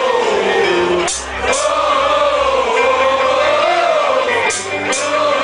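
Crowd of fans singing a wordless melody together, a long rising and falling line in phrases that breaks briefly twice.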